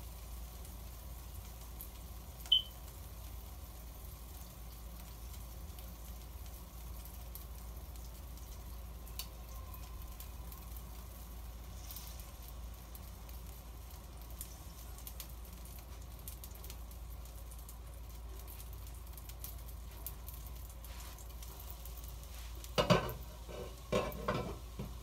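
Faint, steady sizzling of a cake cooking on an electric countertop grill under its glass lid, over a low electrical hum. A single short, high chirp comes about two and a half seconds in. Near the end comes a loud clatter of knocks as the glass lid is lifted off the grill.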